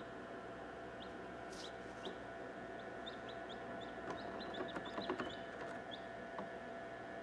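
Newly hatched chicks peeping, short high rising chirps repeated throughout, over a steady hum. A quick run of faint clicks comes about four to five seconds in.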